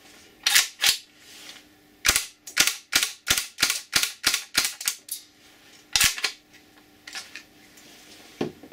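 FGC-6H hammer-fired 3D-printed airsoft replica firing on HPA: two sharp shots, then a quick string of about ten at roughly three a second, one more shortly after, and a few fainter clicks near the end. The hammer drops and cycles shot after shot, showing the mechanism now works.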